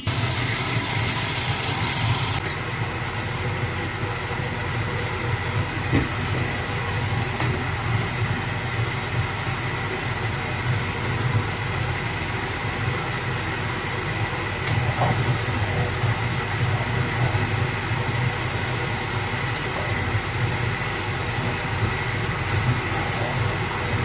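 A steady low hum with a rushing noise over it and a faint high whine, unchanging throughout, with a few faint clicks.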